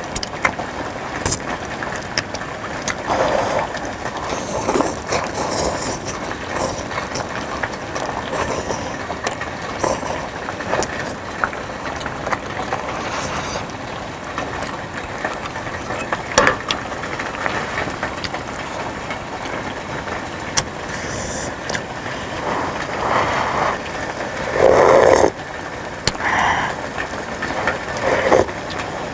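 Pot of suki soup boiling, a steady bubbling hiss, with scattered clicks and clinks and a few louder bursts of noise, the loudest near the end.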